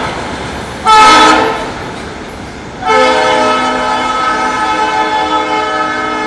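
Norfolk Southern diesel locomotive's multi-tone air horn sounding a short blast, then a long one that is held until it cuts off abruptly, as the train moves away with its running noise underneath. The long–long–short–long sequence is the grade-crossing signal, and this is its closing short and long.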